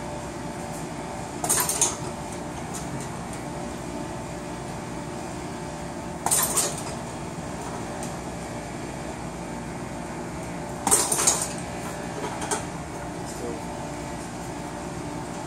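Gloved Wing Chun straight punches striking a padded hanging heavy bag in short flurries: three about five seconds apart and a lighter one just after the third. Each flurry sets the bag's hanging chain clinking.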